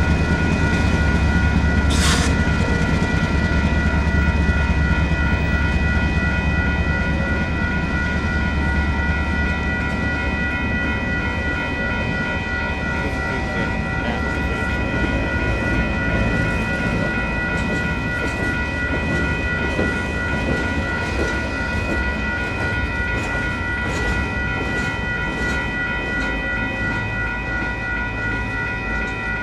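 Two WCH Gen 2 electronic railroad crossing bells ringing steadily over the rumble and rattle of a passing Union Pacific freight train of empty intermodal flatcars. The rumble is heaviest at first and eases off; a short burst of hiss comes about two seconds in.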